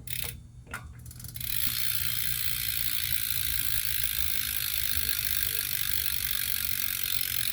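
BMX rear hub freewheeling as the rear wheel is spun: after a few knocks, a steady rapid buzz of the pawls ratcheting sets in about a second and a half in.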